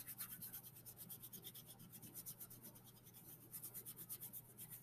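Faint, quick, even scratching of a paintbrush dry-brushing metallic paint over a black-painted canvas board.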